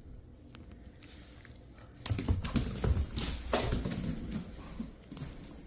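A furry cat-toy ball playing its electronic mouse squeak: a run of short, high chirps starting about two seconds in, with knocks and rustling as it is handled.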